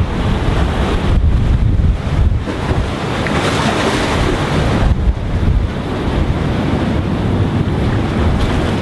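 Wind buffeting the microphone over the wash of sea waves against a concrete tetrapod breakwater, with a louder surge of surf hiss a few seconds in.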